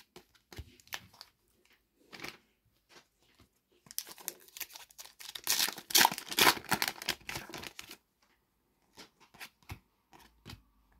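Foil trading-card packet torn open and crinkled by hand, the dense rustling running from about four to eight seconds in. Before and after it, scattered light clicks and flicks of the cards being handled.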